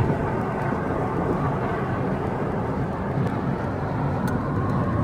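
Ford Mustang cruising at highway speed, heard from inside the cabin: a steady engine drone under road and wind noise.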